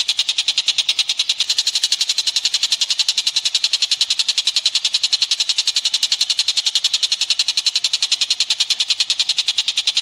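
A steady, high-pitched pulsing trill at about ten pulses a second, played as a masteran recording for training caged songbirds to copy.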